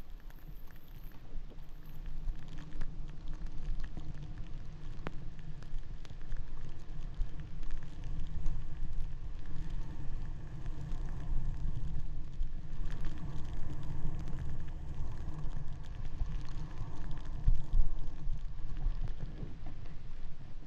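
Wind rumbling over the microphone while riding down a groomed snow slope, with the hiss and scrape of sliding on the snow. The rumble grows a little louder partway through, with one louder bump near the end.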